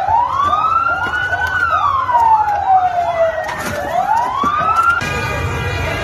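Emergency vehicle sirens: one wailing, slowly rising and falling in pitch, with a second yelping rapidly over it at about three pulses a second, over a crowd. About five seconds in, the sound cuts abruptly to a steady, higher tone.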